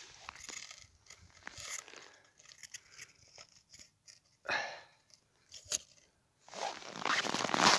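Crunching of snow and broken ice at a re-frozen ice-fishing hole: scattered soft crunches, one sharper burst about four and a half seconds in, then dense, louder crunching near the end.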